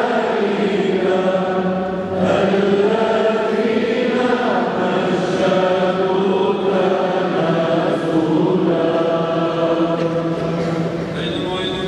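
Male voices chanting a Byzantine-rite liturgical hymn together, a continuous melodic line with long held notes.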